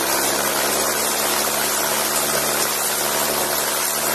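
Aviat Husky A-1C's engine and propeller running steadily as the ski-equipped plane slides across snow, with an even hiss laid over the engine note.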